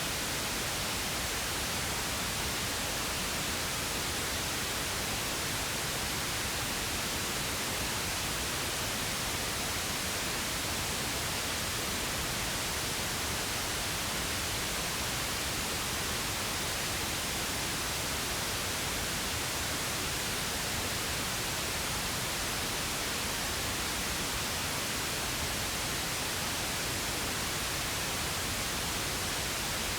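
Steady pink noise: an even, unchanging hiss spread across all pitches, with no breaks or events.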